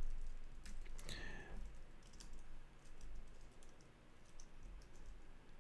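A few faint, scattered computer keyboard keystrokes as Vim commands are typed.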